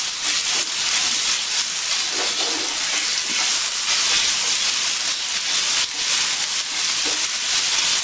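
Ginger-garlic paste sizzling in hot oil in a nonstick frying pan, a steady hiss, as it is stirred with a wooden spatula to brown it lightly.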